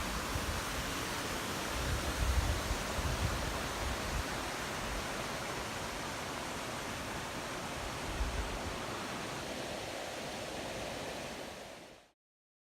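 Steady rushing water noise, with wind buffeting the microphone in the first few seconds and again briefly later. It fades out near the end.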